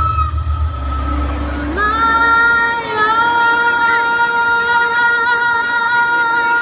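A young girl singing live into a microphone over a backing track, which drops its bass within the first two seconds; she then holds one long high note to the end.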